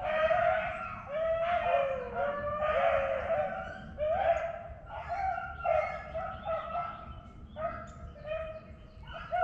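A pack of beagles baying on a rabbit's track, a run of drawn-out bawls from several hounds that overlap and come and go: the dogs are on the scent of a running swamp rabbit.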